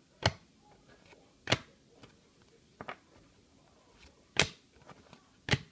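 Basketball trading cards being flicked one at a time from a hand-held pack stack: five short, crisp card swishes every second or so as each card slides off the others.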